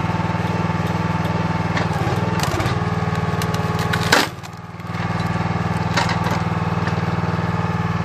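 Engine-driven hydraulic log splitter running steadily while its wedge forces through a log, the wood crackling and splintering, with one loud crack about four seconds in.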